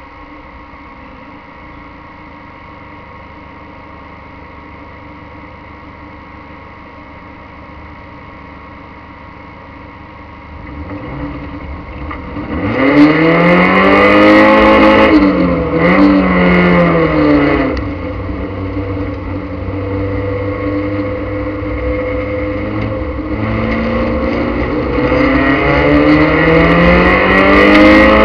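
Speedway race car's engine heard from inside the cockpit, running low and steady at first. From about ten seconds in it revs up hard, rising and falling in pitch as the throttle opens and eases, drops back for a few seconds, then climbs again as the car accelerates near the end.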